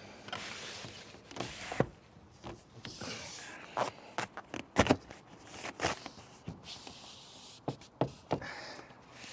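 Ripstop nylon vane cover rustling and scraping as it is worked down over a wind-vane self-steering vane, with scattered knocks and taps from handling.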